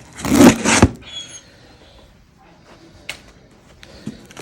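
Cardboard shipping box being cut and opened by hand: a loud rustling scrape of cardboard and tape through the first second, then quieter handling with a single sharp click about three seconds in.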